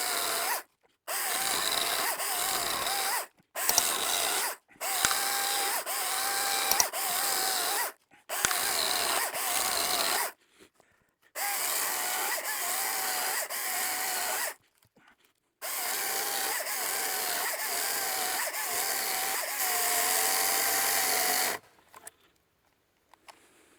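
Echo DCS-2500T battery top-handle chainsaw cutting small wood in about seven runs of a few seconds each, the motor whine wavering under load and stopping dead between trigger pulls. The battery is down to one bar and the saw has gone into limp mode.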